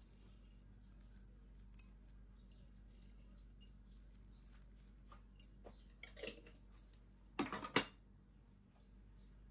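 Sliced almonds being sprinkled onto a glass bowl of vermicelli dessert: faint scattered light taps, then a short burst about six seconds in and a louder cluster of quick clattering taps at about seven and a half seconds.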